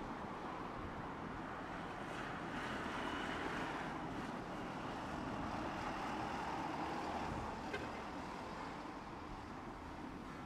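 Steady street-traffic noise as a Tosaden streetcar rolls slowly along the tracks toward the stop, with one sharp click about three quarters of the way through. Wind on the microphone.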